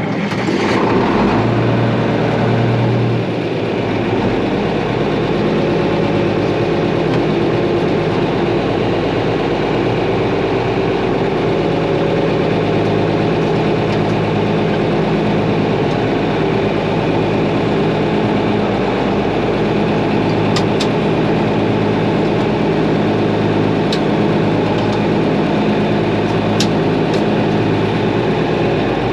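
Tractor engine running steadily, loud and close, starting abruptly at the outset and holding an even pitch throughout, with a few faint clicks later on.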